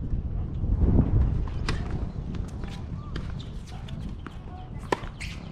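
Tennis serve: light ball-bounce and footstep clicks on the hard court, then one sharp racquet-on-ball strike about five seconds in, over low wind rumble on the microphone.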